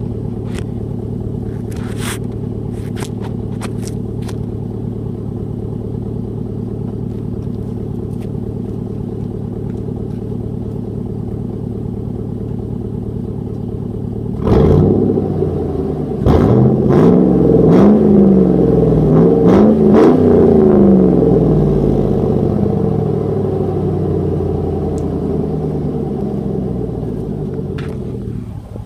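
2001 Chevrolet Silverado's 4.8-litre Vortec V8 exhausting through a straight pipe in place of its muffler, idling steadily. About halfway through it takes a quick throttle blip, then several revs that rise and fall, and it eases back down to idle near the end.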